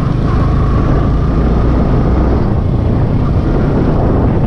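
Yamaha sport motorcycle ridden at about 30–35 km/h, its engine running steadily with a low hum, mixed with wind noise on the bike-mounted microphone.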